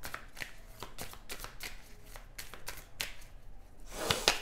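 Tarot deck being shuffled by hand: a quick, uneven run of soft card slaps and flicks, getting denser and louder near the end.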